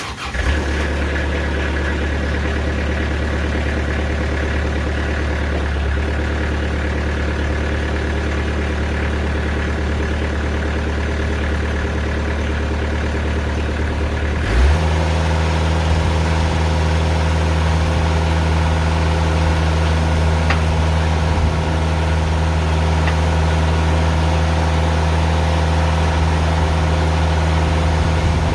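Sawmill's diesel engine cuts in suddenly and runs at a steady idle, then about halfway through its speed rises quickly and holds steady at a higher pitch.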